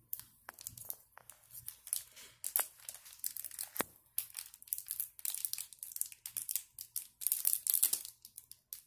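Clear plastic wrapper of a small modeling clay packet crinkling and tearing as hands work it open: irregular crackles throughout, busiest and loudest about seven seconds in.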